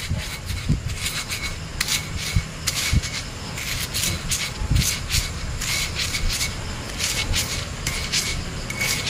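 Stone pestle grinding and pounding Marie biscuits into mashed tempeh in a stone mortar: irregular gritty scrapes and dull stone-on-stone knocks, about two strokes a second, as the dry biscuits are crushed into the paste.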